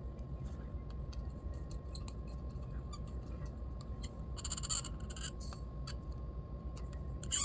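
Small carburetor parts being handled and cleaned: faint clicks and taps over a low steady hum, with a brief hiss about halfway through.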